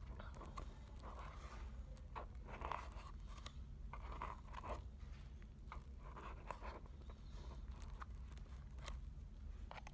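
Eating sounds: wooden chopsticks clicking and scraping in a bowl of noodles, with a person chewing. There is a steady low hum underneath.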